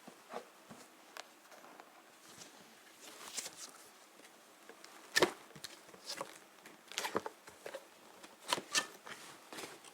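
Scattered light taps and clicks at irregular intervals, as of small objects being handled and set down, with the sharpest about halfway through and two more close together near the end.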